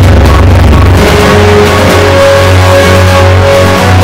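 Loud background music with a heavy, steady bass and long held notes.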